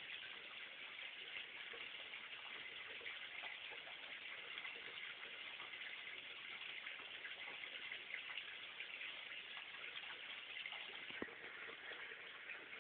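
Faint, steady rushing of water, with a few soft clicks.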